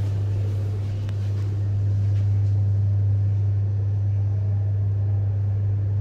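Mitsubishi high-rise lift car travelling: a steady low hum under an even rush of ride noise, holding level throughout.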